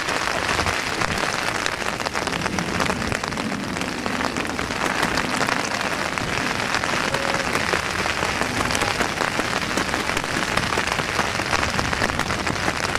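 Steady rain falling and pattering: an even hiss speckled with the fine crackle of drops.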